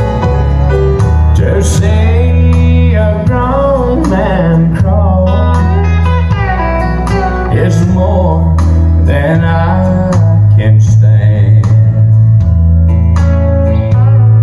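A country song with singing and guitar, playing from a jukebox.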